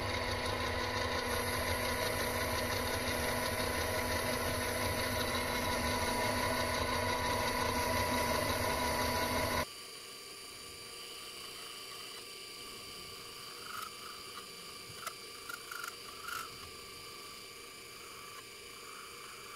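Metal lathe running while turning a metal disc: a steady motor and gear hum with several held tones. About halfway through it drops abruptly to a quieter steady run, with a few faint ticks near the end.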